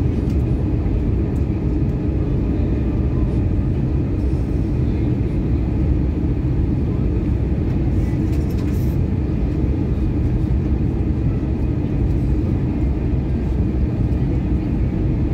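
Steady cabin roar of an Airbus A320-233 in flight, heard from a seat over the wing: airflow and its IAE V2500 engines make a constant deep rush with a faint high tone above it.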